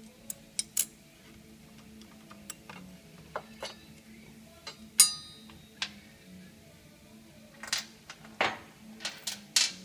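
Steel saddlebag mounting bracket clinking and knocking against a motorcycle frame as it is fitted by hand: a dozen or so separate sharp clicks and clanks, the loudest about five seconds in with a brief metallic ring, and a short scrape near the end.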